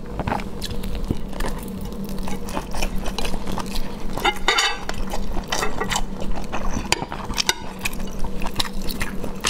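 Close-up wet chewing and mouth sounds from eating a soft roll stuffed with glass noodles, with many small clicks and a denser smacking stretch about halfway through. Near the end the roll is dipped into a bowl of chili oil. A steady low hum sits underneath.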